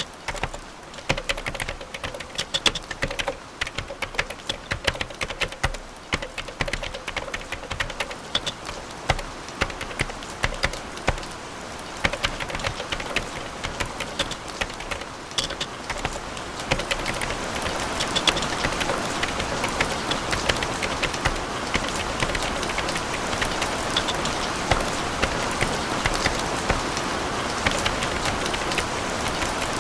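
Computer keyboard typing, a quick irregular clatter of key clicks, with a steady rain-like patter fading in about halfway through and taking over in the second half.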